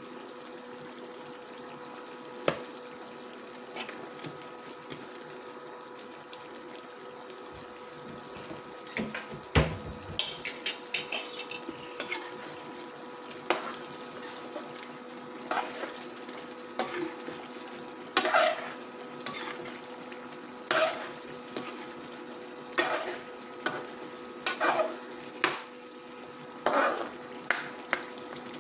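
A metal spoon stirring and scraping chicken karahi gravy in a steel pan, with sharp scrapes and clinks coming about once a second from about a third of the way in. Under it the gravy simmers steadily and the induction cooktop gives a steady high whine.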